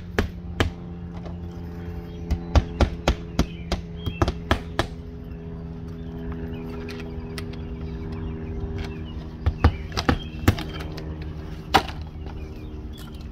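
Hand hammer driving nails through the nailing flange of vinyl siding: runs of quick sharp blows, about three a second, with a few single knocks later. A steady low mechanical hum runs underneath.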